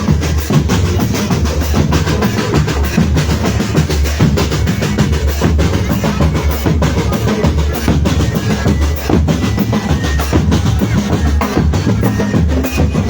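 Marching drumband playing: bass drums and snare drums beating a fast, steady, dense rhythm with rolls.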